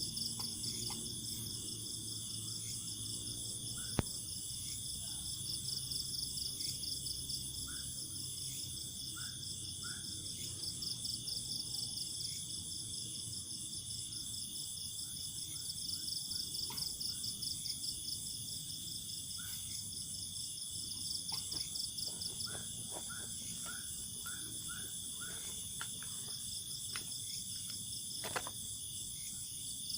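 A night chorus of crickets and other insects: steady, high-pitched trilling that pulses and swells, with scattered short chirps from other small animals. There is a sharp click about four seconds in and another near the end.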